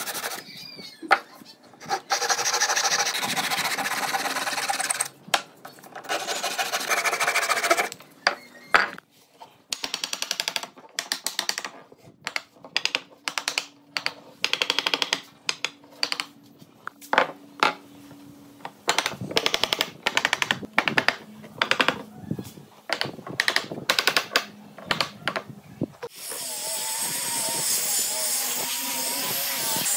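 Hand saw strokes cutting through pine at the start, then a long run of sharp, irregular knocks on the wooden frame. About 26 seconds in, an angle grinder with a sanding disc starts up and runs steadily with a wavering whine as it sands the pine frame.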